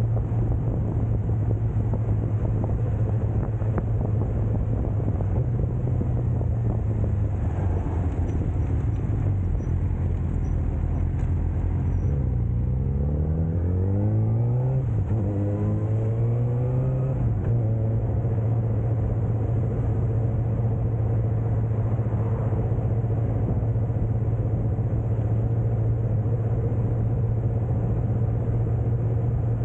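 Suzuki GSX-R sportbike engine running at steady cruising revs, heard from on the bike. About twelve seconds in the revs drop, then climb in two rising sweeps, a gear change between them, before settling back to a steady note.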